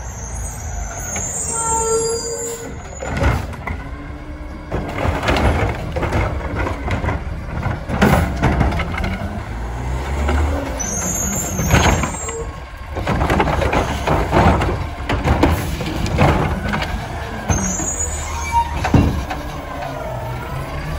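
Natural-gas Mack LR front-loader garbage truck with a Heil Curotto Can body pulling up: engine running, air brakes hissing, with repeated clanks and bangs from the body and can arm. Brief high squeals a few times.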